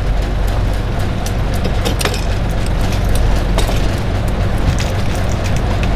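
A fishing boat's engine running steadily, a low hum with many short sharp ticks scattered over it.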